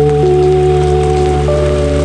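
Slow ambient music: soft held notes over a sustained low drone, the melody moving to a new note about once a second, over a steady hiss like rain.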